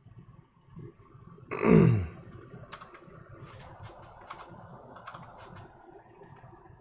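Scattered keystrokes and clicks on a computer keyboard. About a second and a half in there is one brief loud sound, louder than the clicks, that falls in pitch.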